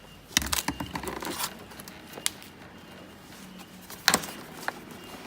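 Clicks and knocks of the dishwasher's hose clips and hoses being handled as the tabs are pressed to free them: a rattling cluster about half a second in, a sharp knock near the middle, and a louder knock a little after four seconds.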